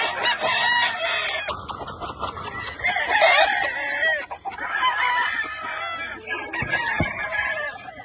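Gamefowl roosters crowing and chickens clucking, with several calls overlapping.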